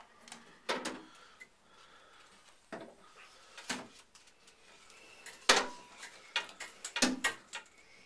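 About ten short, irregularly spaced clicks and knocks, the loudest about five and a half seconds in and a quick cluster around seven seconds: a handheld shower head's metal fittings and hose being handled while it is fitted to the shower's wall mount.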